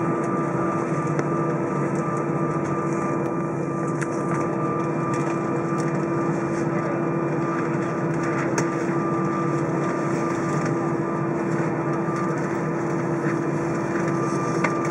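Cabin noise inside a taxiing Airbus A320: the jet engines at low taxi power and the cabin air running as a steady drone, with a constant low hum and a thin higher whine over it, and a few faint clicks.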